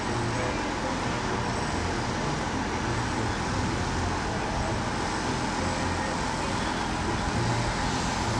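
A steady engine drone with a low rumble that runs on unchanged.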